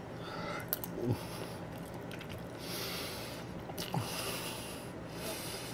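Person eating quietly, with soft breaths through the nose and a few faint clicks of a fork against the plate.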